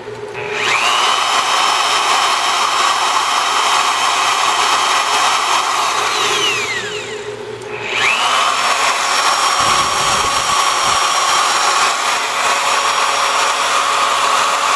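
Milwaukee 4204-1 magnetic drill press motor starting with a rising whine and running steadily, then switched off and winding down about six seconds in. It starts again about eight seconds in and runs steadily.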